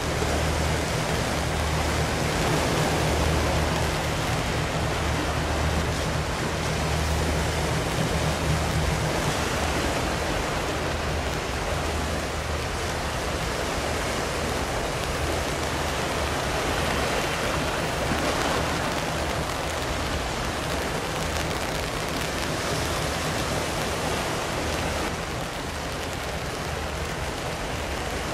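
Steady hiss of light rain over the sea. Under it runs a low engine drone from the passing patrol ship PLH21 Fusou, strong for the first nine seconds or so and then fainter.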